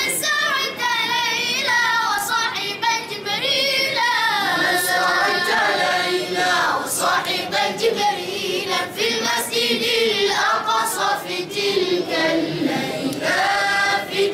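Arabic devotional qaseedah sung by voices, the melody moving in long lines that waver and bend in pitch.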